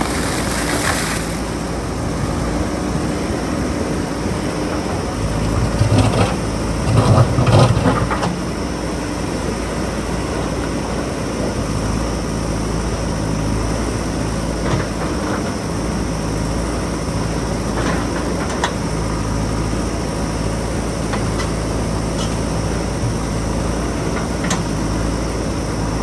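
JCB backhoe loader's diesel engine running steadily under hydraulic load as its backhoe bucket digs through rock and mud, with a louder stretch of engine strain and grinding rock about six to eight seconds in and a few sharp clinks of stone.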